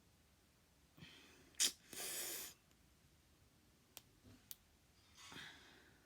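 A person's breath close to the microphone: a sharp huff, then a loud half-second exhale, and a softer exhale near the end, with a couple of small clicks in between.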